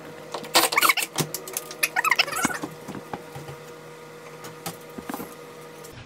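Clusters of sharp clicks and knocks in two short bursts, about half a second and two seconds in, from work on taking an interior door off its hinges, then only a faint steady hum.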